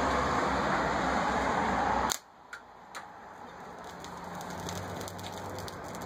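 A loud steady rushing noise cuts off abruptly about two seconds in. It is followed by quieter, scattered crackles that come more often, with a faint hum, as the microwave-oven-transformer melter heats a strip of computer sheet metal until it glows at the clamp.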